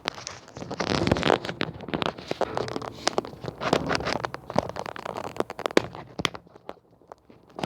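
Handling noise: irregular rustling and scraping with many sharp clicks and knocks, dying down near the end.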